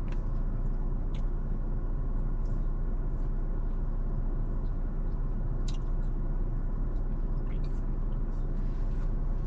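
Steady low rumble of an idling car heard from inside the cabin, with a few faint clicks scattered through it.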